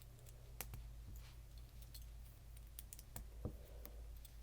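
Small plastic Lego pieces clicking and tapping against each other as they are handled and pressed into place: a scattering of sharp, irregular clicks, faint over a low steady hum.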